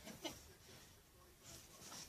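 Near silence: quiet room tone with a couple of faint, soft sounds.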